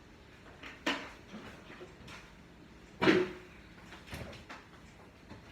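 A few short knocks and clunks of kitchen handling, such as a door, a drawer or containers being set down. The loudest comes about three seconds in, with a brief ring after it.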